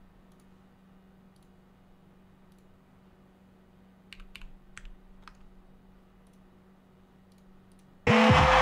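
Low steady hum with a quick cluster of about five clicks at a computer about four seconds in. Near the end the battle video's loud beat and crowd cut back in abruptly.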